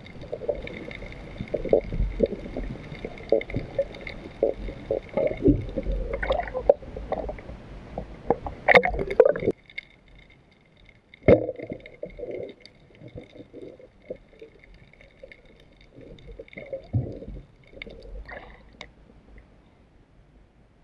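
Water sloshing and gurgling in irregular bursts, busiest for the first half, then thinning to occasional splashes.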